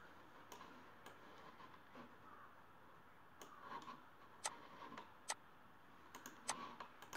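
Computer mouse clicking a handful of times at irregular intervals, over near-silent room tone.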